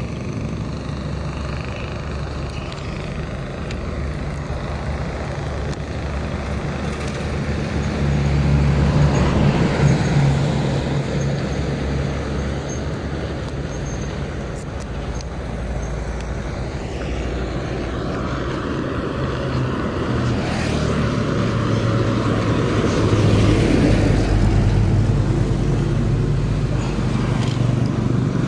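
A motor vehicle engine running steadily, its pitch and loudness rising and falling, swelling about a third of the way in and again near the end.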